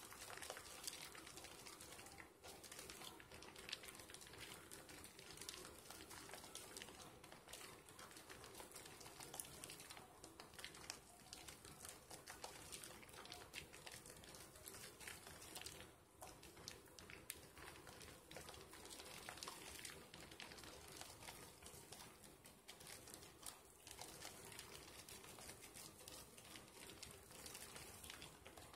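Faint wet squishing and crackling of thick soap lather as hands rub and squeeze a small sliver of bar soap, with many tiny pops and clicks throughout.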